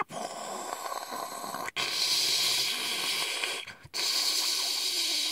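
A harsh hissing sound effect standing in for Pikachu's electric attack (Thunderbolt). It comes in three stretches, with short breaks near two seconds and near four seconds, and grows louder after the first break.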